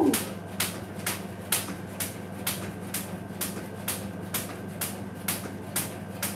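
Jump rope skipping on a hard tiled floor: the rope and feet strike the floor in a steady rhythm, a sharp tick about twice a second.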